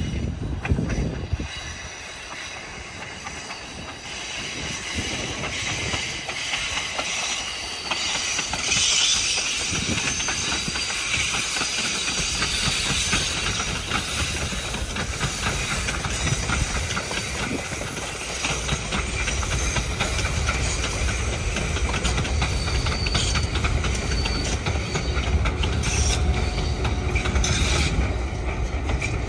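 Passenger train coaches rolling past on the rails with a rattling clickety-clack and wheel hiss. From about two-thirds of the way in, the deep rumble of the diesel locomotive pushing at the rear builds as it draws level.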